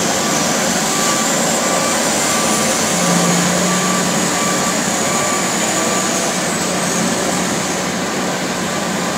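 Large diesel engines of mining machines, a hydraulic excavator and a haul truck, running steadily and loudly while the truck is loaded. A short beep repeats at an even pace through most of the first two-thirds.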